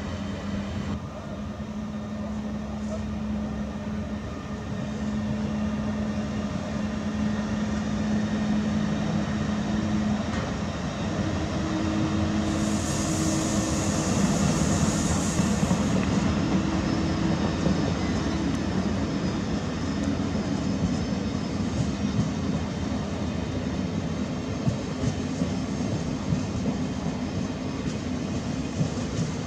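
A train running through the station, with a steady low hum that grows louder. A high hiss lasts about three seconds near the middle.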